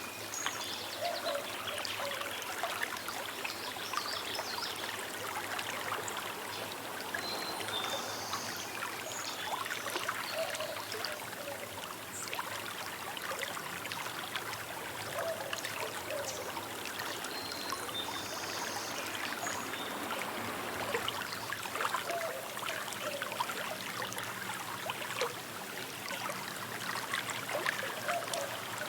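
Small river babbling and trickling steadily over stones. A few short, faint bird chirps sound now and then above the water.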